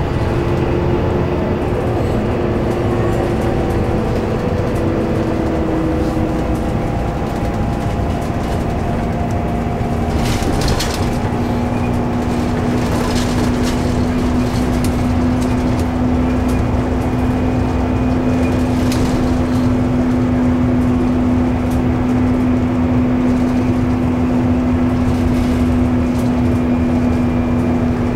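Scania K320UB bus with ZF Ecomat automatic gearbox under way, heard from inside the cabin: a steady rumble of engine and road with a clear driveline whine on top. The whine sinks slightly at first, then holds one lower pitch from about ten seconds in, with a few light rattles near the middle.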